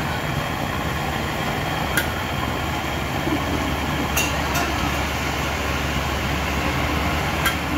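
Steady rushing of a gas burner heating a metal tea pot, with about four sharp clinks of a metal ladle against the pot as the tea is stirred and ladled.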